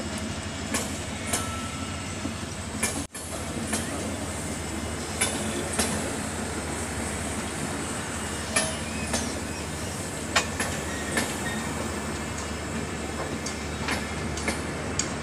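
Passenger coaches rolling past slowly, a steady rumble of wheels on rail with scattered sharp clicks as the wheels cross rail joints. The sound drops out for an instant about three seconds in.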